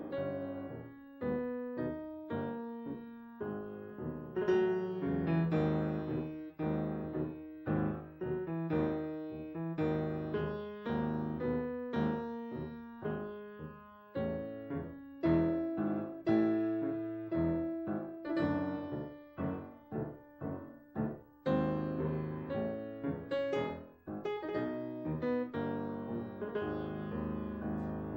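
Solo piano music: a steady run of short struck notes and chords, each dying away quickly.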